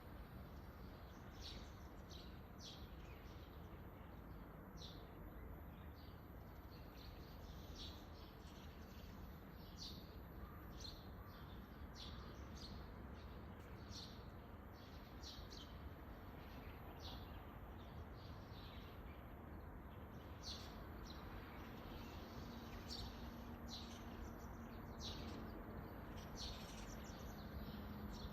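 Small birds chirping outdoors: short, high chirps repeating irregularly, about one or two a second, over a faint steady background hiss.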